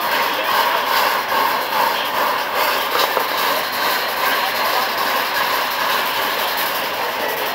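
Union Pacific 844, a 4-8-4 steam locomotive, standing with a steady hiss of steam.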